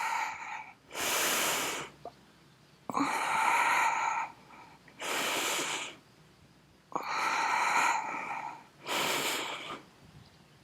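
A person breathing deeply and audibly close to the microphone during a held side plank: five long, noisy breaths about two seconds apart, inhales alternating with exhales.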